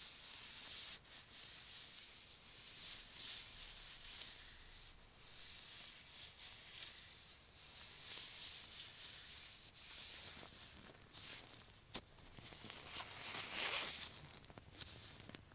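Close rubbing and scratching directly on an earphone microphone, a dry rustling that swells and fades in strokes, with a few sharp clicks, the loudest about three-quarters of the way through.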